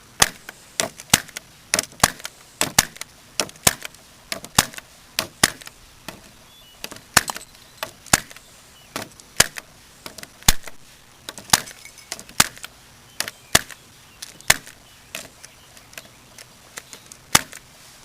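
Electric staple gun firing staples one after another into a trading card in a hard plastic case. It makes sharp snaps, about two a second with uneven gaps.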